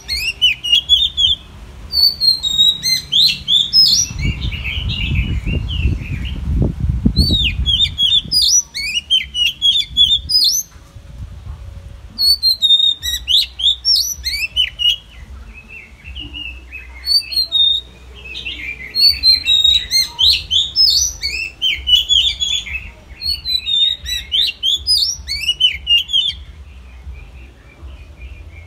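Oriental magpie-robin singing: phrases of quick, sharply sweeping whistled notes delivered in bursts, with pauses of one to a few seconds between phrases. A low rumble sits beneath the song for a few seconds early on.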